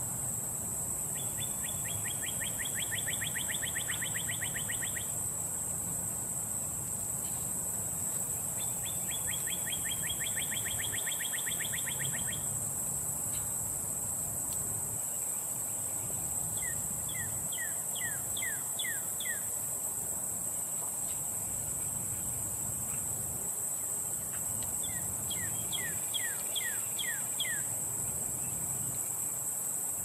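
Northern cardinal singing four phrases: two rapid trills of quickly repeated notes, then two phrases of slower downward-sweeping whistles, with a steady high-pitched hiss running underneath.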